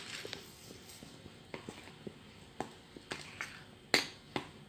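A metal spoon stirring and folding thick pancake batter in a ceramic bowl, with a few separate clicks of the spoon against the bowl, the sharpest about four seconds in.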